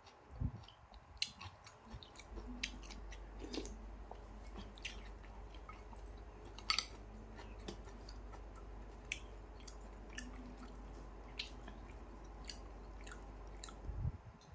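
A person chewing and eating noodle soup close to the microphone, with scattered small clicks and crackles of mouth sounds and utensils. A steady low hum runs underneath from about two seconds in.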